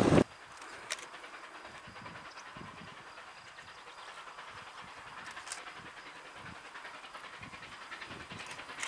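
A distant train approaching, faint under a light steady outdoor hiss, with a few small ticks. At the very start a brief loud gust of wind on the microphone cuts off.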